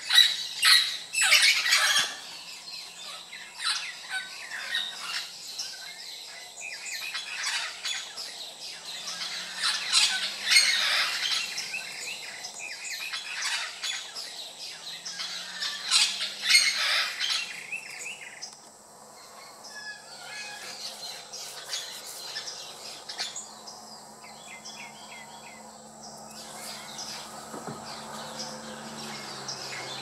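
Red-lored parrots squawking: loud, harsh, repeated calls through the first half, thinning to fewer and quieter calls over the second half.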